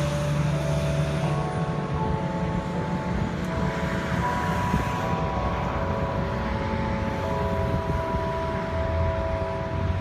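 Church bells ringing: several overlapping pitched tones, each coming in at a different moment and held for seconds, over steady street traffic noise.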